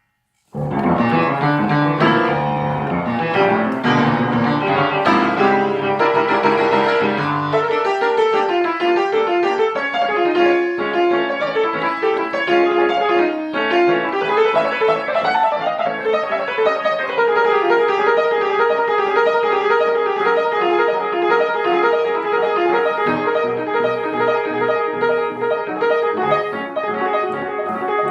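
Piano music, a new piece starting about half a second in after a brief gap.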